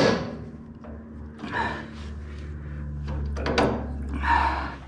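Metal suspension hardware knocking and clinking as a shock bolt and washer are worked into the coil-over's lower mount: one sharp knock at the start, then a few lighter clanks. A steady low hum runs underneath.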